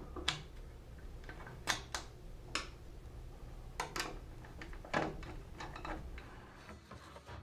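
Scattered small metallic clicks and taps of a T-slot retainer clip and its screw being fitted to the end of an aluminium miter bar, the screwdriver ticking as the screw is turned in.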